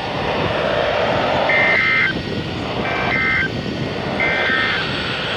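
Three short bursts of EAS digital data tones (the SAME end-of-message code) from NOAA weather radio receivers, about a second and a half apart, marking the end of the Required Weekly Test broadcast. They sound over steady background noise.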